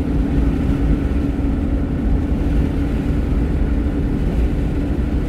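Steady engine and road noise of a moving vehicle heard from inside its cabin, with a constant low hum running underneath.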